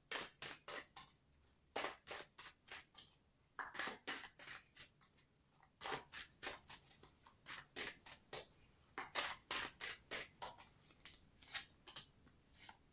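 A deck of tarot cards shuffled between the hands: short, crisp card flicks, several a second, in runs with brief pauses between them.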